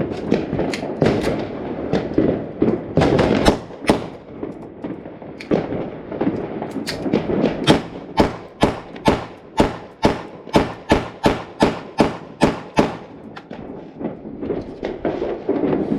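Blank-firing pistol shots: scattered sharp cracks, then a fast string of about a dozen shots in the middle of the stretch, roughly two or three a second, over a background of New Year fireworks crackling and booming.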